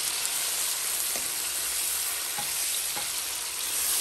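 Raw chicken pieces sizzling in hot oil with fried onions in a nonstick pan, being browned, with a steady hiss and a few light knocks as a wooden spoon stirs them.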